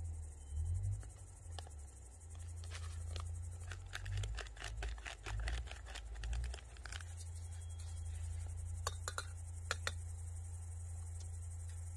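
Crickets chirping steadily over a low rumble, with a run of sharp clicks and rustling handling noises in the middle and a few more clicks near the end.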